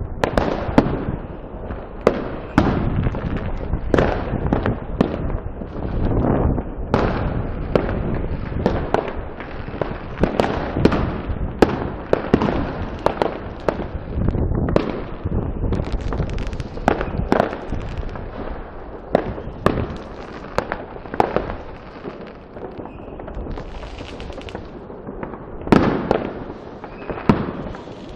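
Many fireworks and firecrackers going off in quick, irregular succession: sharp bangs, some loud and close, over a steady low background of more distant bangs.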